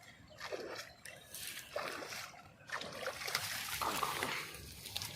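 Water splashing and sloshing in irregular bursts, busiest from about three seconds in.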